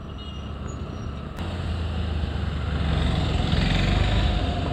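Riding noise from a motor scooter under way: wind buffeting on the microphone mixed with low engine and road noise, louder from about a second and a half in.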